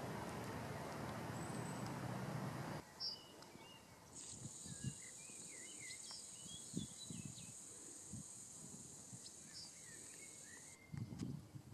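For the first three seconds there is a steady rushing noise, and it cuts off abruptly. After that, songbirds chirp in short sweeping calls over a steady high-pitched insect buzz, with a few soft low thumps.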